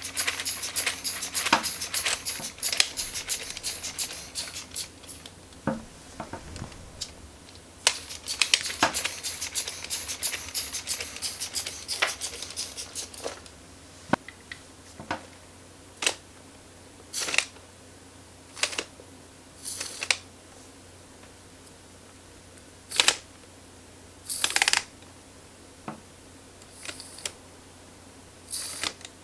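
Lego pneumatic engine running on compressed air: rapid clicking and puffs of escaping air in two runs of about five seconds each. After that come separate short hisses of air, one every second or two.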